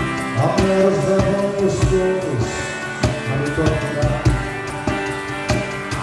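Live band music: a steady drum beat with regular bass thumps under a sustained melody line, with no clear lead vocal.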